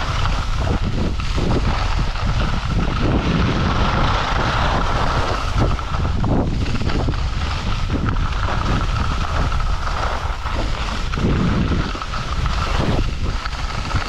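Wind buffeting a GoPro's microphone while skiing downhill: a loud, continuous rumbling rush, with the steady hiss and scrape of skis running over packed snow.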